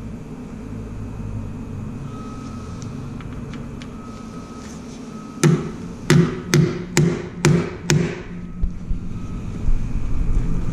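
Wheel weight hammer tapping a clip-on balance weight onto the flange of a steel wheel on a tire balancer: six sharp metallic strikes, a little over two a second, starting about halfway through.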